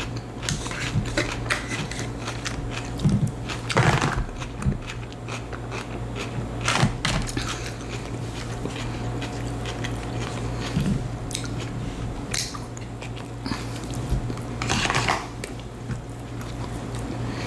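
Close-miked chewing of a mouthful of coleslaw, with irregular wet mouth clicks and smacks, over a steady low hum.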